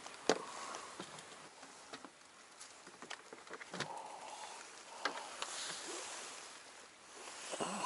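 A few faint, scattered clicks and taps over a quiet background, the small handling knocks of fishing gear in a small rowboat.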